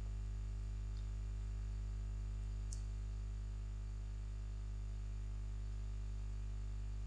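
Steady low electrical hum with a faint hiss underneath, and a couple of faint clicks, the sharper one a little under three seconds in.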